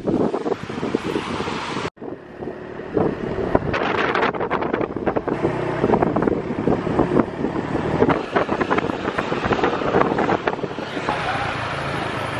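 Wind buffeting the microphone over the steady drone of a small vehicle engine while riding along a road. The sound drops out abruptly about two seconds in, then resumes.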